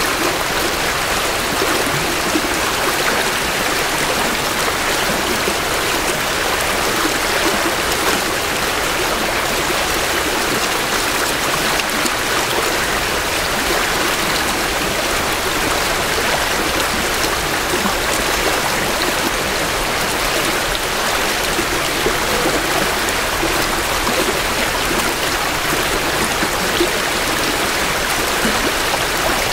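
A small creek swollen with spring runoff, flowing steadily with an even rushing and babbling of water, heard close from the bank.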